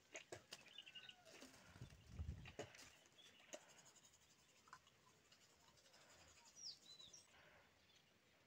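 Near silence: faint outdoor ambience with a few soft clicks and a short, high bird chirp about seven seconds in.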